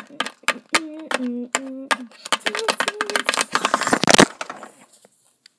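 A tune of short held notes under rapid clicking and tapping, ending in one loud crash about four seconds in.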